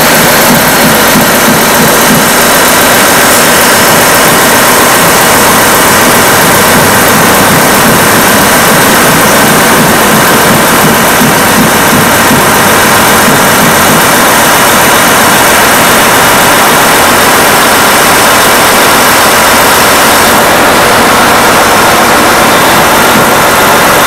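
John Deere 9410 tractor's diesel engine running steadily just after start-up, run to check the newly fitted water pump and hoses for coolant leaks.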